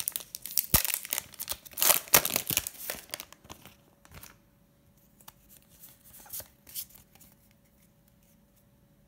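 Foil wrapper of a Pokémon TCG booster pack being torn open and crinkled for about three seconds, then only a few faint clicks as the cards are handled.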